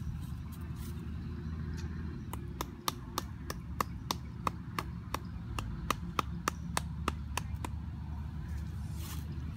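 A machete chopping at wood in a run of about twenty quick, even strokes, roughly three to four a second, each a sharp knock with a short ring; the strokes start about two seconds in and stop about two seconds before the end, over a steady low rumble.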